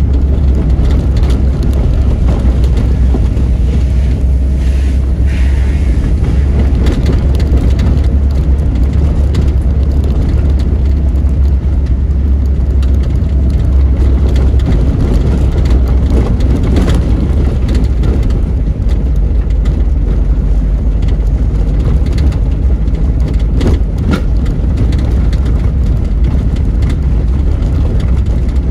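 Car driving on a dirt road, heard from inside: a steady low rumble of engine and tyres on the unpaved surface, with a few short knocks.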